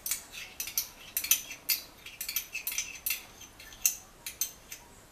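Metal spoon clinking and tapping against the plastic blender jar and a small ramekin as mustard is spooned and knocked off into the jar: a quick, irregular run of light, ringing clicks.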